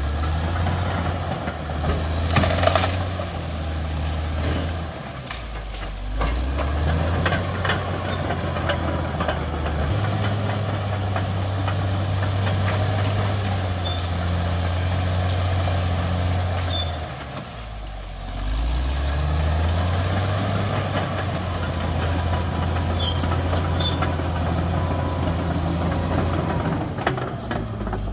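Caterpillar D6R XL bulldozer's diesel engine working, its pitch stepping up and down as the revs change, with a brief drop and recovery a little past halfway. Scattered short cracks and clanks sound over the engine.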